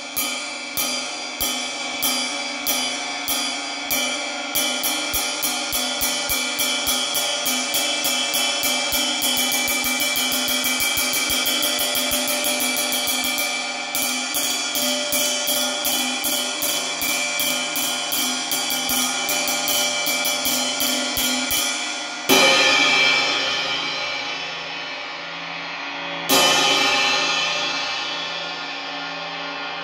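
Paiste Sound Creation New Dimension 22-inch bell ride played with a wooden drumstick: a steady ride pattern on the bow that speeds up to fast strokes, then two loud hits about four seconds apart, each left to ring out in a long wash.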